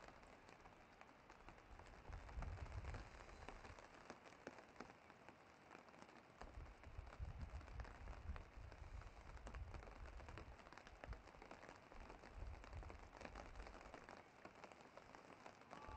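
Near silence: faint outdoor ambience of light rain pattering in fine scattered ticks, with intermittent low rumbles.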